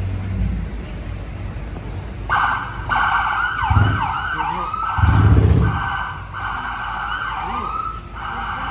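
An emergency vehicle siren starts about two seconds in and keeps wailing and warbling over a low traffic rumble, with two deep rumbles about four and five seconds in.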